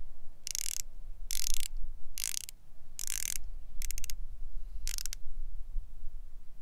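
Certina DS PH200 diver's watch bezel being turned in short runs: about six bursts of rapid ratcheting clicks, a little under a second apart, really loud and firm.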